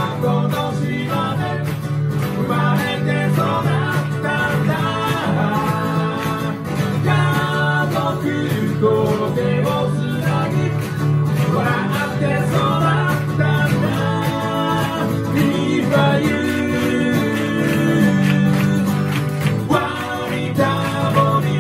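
A live acoustic band: male voices singing over strummed acoustic guitars, played loud and without a break.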